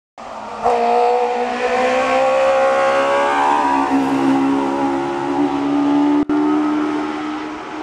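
VW Polo Coupe 16V race car's four-cylinder engine at full throttle, its pitch climbing hard, then dropping about three and a half seconds in before pulling on and fading away. A brief break in the sound comes about six seconds in.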